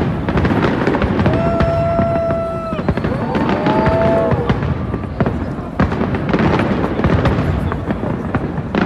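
Fireworks display at full intensity: a dense, unbroken crackle of many shells bursting and banging at once. A held whistling tone sounds over it about a second in, and a shorter wavering one about three and a half seconds in.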